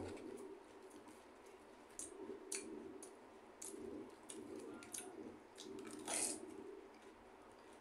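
Faint sounds of a person eating with his hands: chewing, with the crinkle of a raw cabbage leaf being torn and folded. A few short sharp clicks come through, the loudest about six seconds in.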